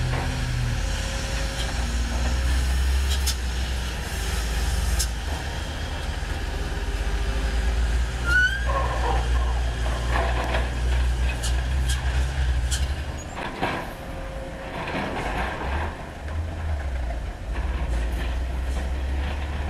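Diesel engines of Hino 500 and Isuzu Giga dump trucks running as the trucks drive and manoeuvre on a dirt haul road, a steady low drone. A few short hisses and a brief rising squeal come through about eight seconds in, and the drone drops for a moment a little past the middle before picking up again.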